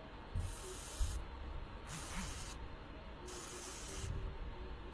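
Hot soldering iron tip sizzling as it is dipped again and again into a tip-cleaning liquid, three short hisses about a second and a half apart. The hot tip is boiling the liquid off as it cleans the blackened, burnt tip.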